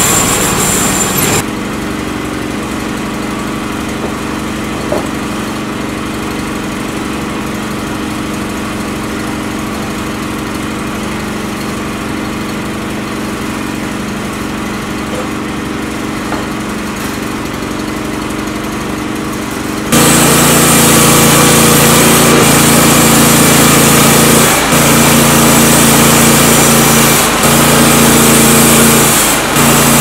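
Norwood LumberPro HD36 band sawmill cutting cedar. The blade finishes a cut about a second and a half in, and the engine drops to a steady idle. About twenty seconds in the engine throttles up and the band blade runs loud again through a fresh cut, dipping briefly three times.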